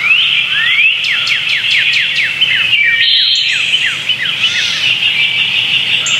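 Birdsong: a run of short chirps, each sweeping downward in pitch, about two a second, over a steady high chorus of other birds; the chirps die away about two-thirds of the way through.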